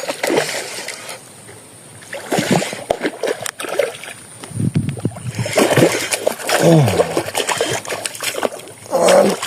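Water splashing in irregular bursts as a hooked snakehead thrashes at the surface.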